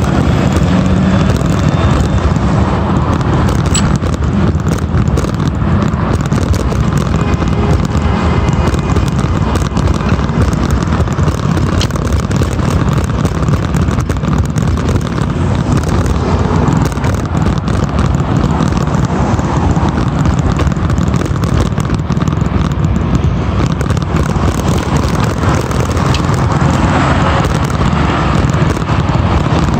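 Steady wind rumble on the microphone of a bicycle-mounted or handheld phone while riding, mixed with cars passing on the road alongside. It stays loud and even, without clear separate events.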